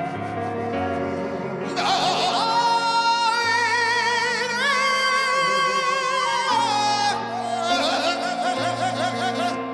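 A man singing with piano accompaniment, holding one long high note with vibrato for about four seconds in the middle.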